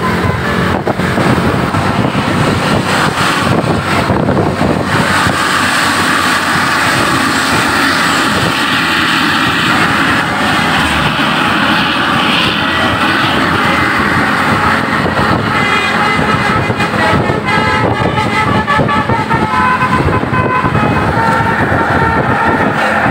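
Tour buses passing with their engines running in a steady roar. From about two-thirds of the way through, multi-note telolet air horns play a quick rising-and-falling tune over the engine noise.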